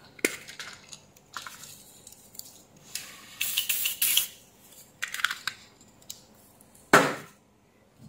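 Cleaning spray hissing in short bursts onto a freshly soldered circuit board to clean it after soldering: a longer hiss about three seconds in and a shorter one about five seconds in. A sharp knock follows near the seventh second.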